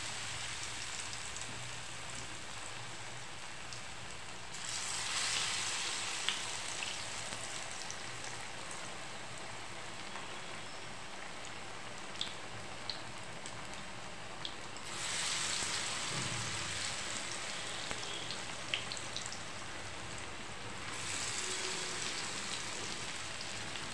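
Battered eggplant slices frying in hot oil in a pan: a steady sizzle that swells louder three times.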